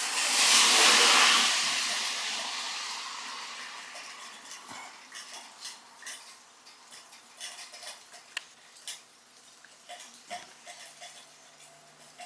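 A loud rush of noise that swells about a second in and fades over several seconds, then a scattering of light clicks and laps as a Shiba Inu puppy drinks from its water bowl.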